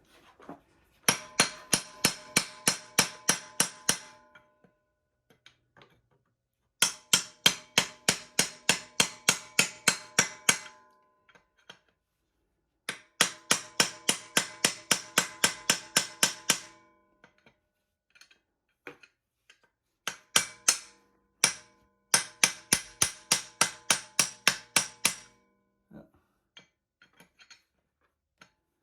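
A 10-ounce mini hammer striking a metal tool set against a freeze plug in an engine block, to knock the plug loose: four quick runs of about four or five blows a second, each ringing metallically, with a few single taps between the runs.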